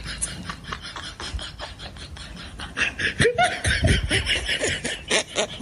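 A person laughing in quick breathy bursts, louder from about halfway through.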